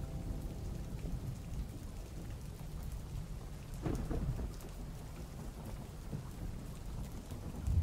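Low, steady rumbling of wind and handling noise on the camera microphone, with a brief faint whine that rises and falls about four seconds in.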